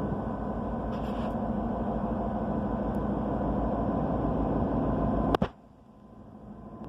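Diesel locomotives of a train running with a steady rumble and hum. About five seconds in a sharp click cuts in, the sound drops away abruptly, and it then builds again.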